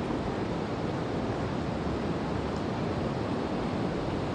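Steady rushing of fast-flowing river water, an even noise with no distinct events.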